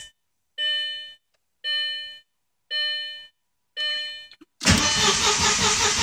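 A dashboard warning chime sounds four times, about a second apart. Then, near the end, the starter cranks the Audi S4's 2.7-litre twin-turbo V6 with a steady pulsing churn, and the engine does not fire. This crank-no-start was later traced to a bent valve that left no compression on the passenger-side bank after the timing belt job.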